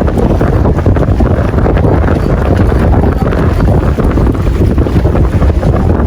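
Strong wind buffeting the microphone: a loud, low, unsteady rumble of wind noise.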